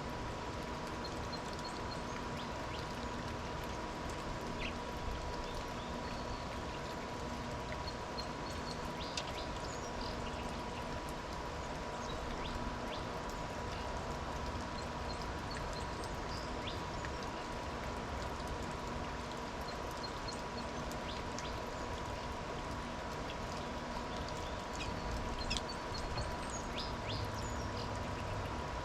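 Small birds chirping now and then at feeders, short high calls scattered through a steady background hiss with a faint constant hum.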